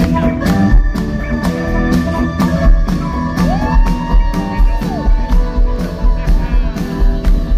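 Live rock band with flute lead: transverse flute playing over a steady drumbeat, bass, keyboards and electric guitar. Midway, a held flute note slides up, sustains and slides back down.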